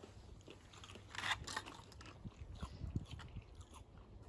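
Faint chewing and crunching of chili-coated peanuts, with a louder crunch about a second in.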